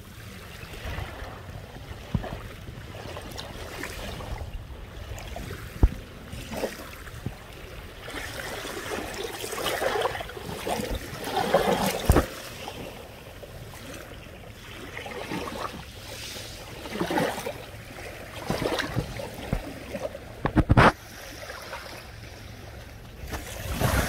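Small waves lapping on a beach of crushed shells and pebbles, washing in and drawing back in slow swells. A few sharp clicks stand out, the loudest near the end.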